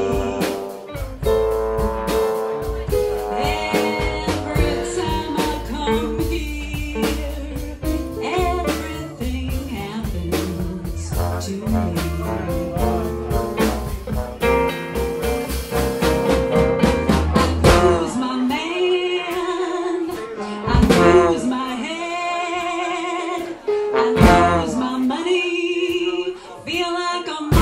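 Live small band playing jazz-blues: archtop electric guitar, upright bass and drums under a pitched lead line with wavering pitch at the front. About two-thirds of the way through the bass and drums drop out, leaving the lead and the higher instruments.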